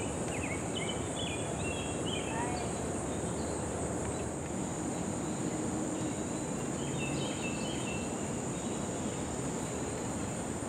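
Steady high-pitched insect chorus over a constant outdoor background noise, with a few short high chirps in the first couple of seconds and again about seven seconds in.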